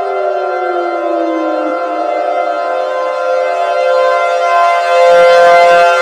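Civil defense sirens sounding, several steady tones together while one slides down in pitch over the first two seconds. About five seconds in, a louder, harsher layer with a low buzz cuts in.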